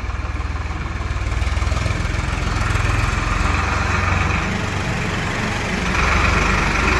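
Farmtrac 60 tractor's three-cylinder diesel engine running as the tractor drives in at low speed, the engine sound getting louder about a second in and again near the end.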